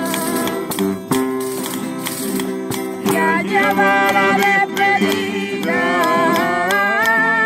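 Acoustic guitar strummed in steady chords, with the jingles of a hand-held frame drum (pandereta) shaken and struck along with it. Singing comes in about three seconds in.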